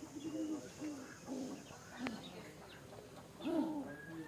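Domestic pigeons cooing: a run of low, arching coos, one after another, the loudest near the end, with faint higher chirps among them.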